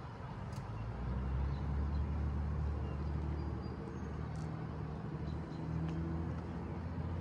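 Low engine rumble from an unseen motor vehicle, swelling about a second in and then running steadily with slight shifts in pitch.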